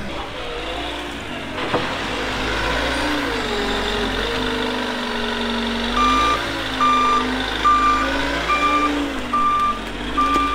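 Manitou telehandler's diesel engine running and revving up and down as it works the muck heap. From about six seconds in, its reversing alarm beeps steadily, roughly one beep every 0.8 seconds.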